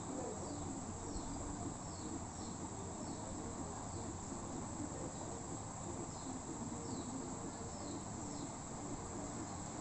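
Insects chirping in the background: a steady high trill with short falling chirps repeating about once a second.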